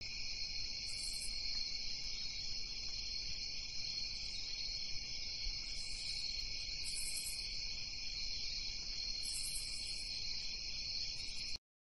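Crickets chirping in a steady high trill, a night-time ambience sound effect, with a higher chirping joining in now and then. It cuts off suddenly just before the end.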